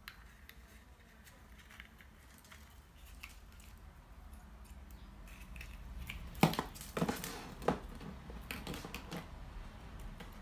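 Hollow plastic Easter eggs clicking and knocking against each other and the tabletop as a strung line of them is handled and laid out, with a cluster of sharp clacks in the second half.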